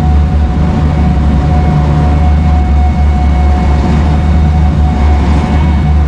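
Tour boat's engines running steadily: a deep, even drone with a thin steady whine above it.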